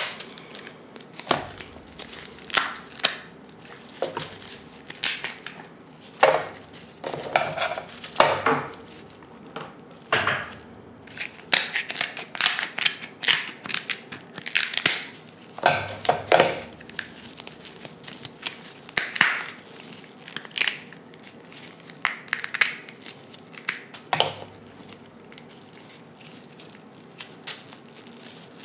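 Cooked king crab legs being snapped and cracked apart by gloved hands close to the microphone: the shells crunch and crackle in sharp, irregular cracks, thinning out near the end as the meat is pulled from the shell.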